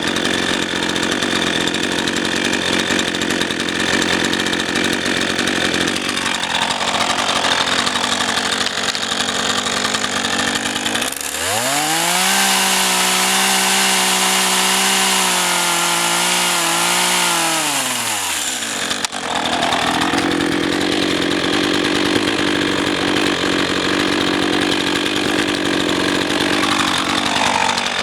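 RedMax GZ400 two-stroke chainsaw cutting oak firewood, running steadily under load. About a third of the way in, the engine pitch climbs to a high, steady wail with small dips. It falls back about eight seconds later, and the saw returns to its lower working sound.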